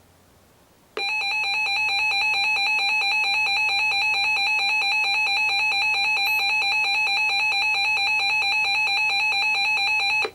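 A weather alert radio's built-in alarm sounding as the radio receives a new warning. It is a single loud, steady electronic alarm tone that starts about a second in and cuts off suddenly after about nine seconds.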